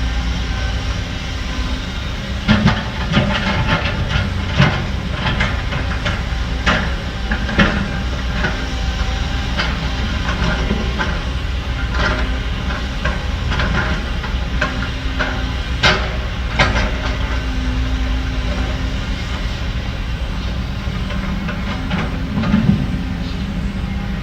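Heavy diesel construction machinery running steadily, with irregular metal clanks and knocks throughout; the two loudest come close together about two-thirds of the way in.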